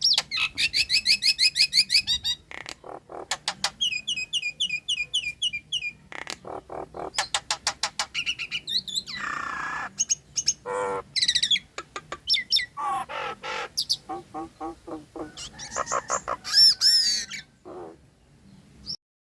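Nias hill myna singing a varied, busy song of rapid chirp trains, whistles and harsher squawk-like calls, one phrase after another. It stops abruptly near the end.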